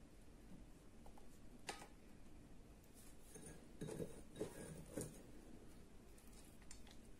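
Faint taps of cashews and other dry fruits dropped by hand onto a plate of food: a single click about two seconds in and a few soft knocks around four to five seconds in, over near silence.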